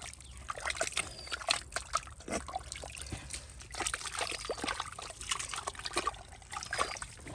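Wet mud and water sloshing and trickling, with many irregular small splats and squelches, as when mud is worked by hand while digging for eels.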